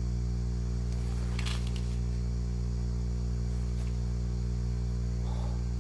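Steady low electrical hum with a faint buzz, unchanging throughout, and a brief faint rustle about a second and a half in.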